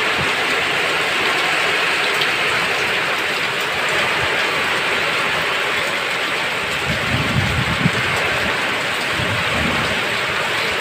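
Strong wind and rain: a steady rain hiss, with low gusts of wind buffeting the microphone about seven and nine seconds in.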